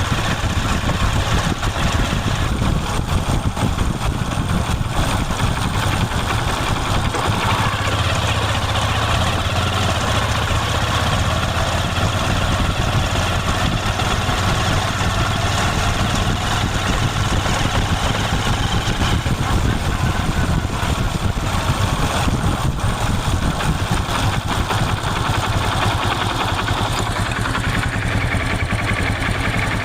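Motorcycle engine idling steadily, its fast even exhaust beat running without change.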